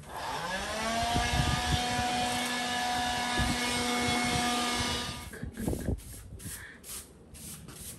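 Red handheld cordless vacuum cleaner switched on, its motor rising in pitch to a steady whine, running about five seconds, then switched off.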